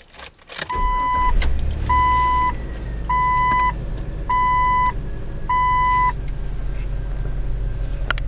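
A Jeep's engine starts and settles into a low, steady run, while the dashboard warning chime sounds five times, evenly spaced about a second apart, then stops.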